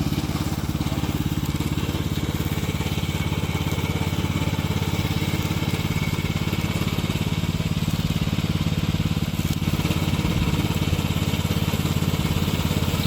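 Petrol engine of a remote-controlled tracked lawn mower running steadily at constant speed.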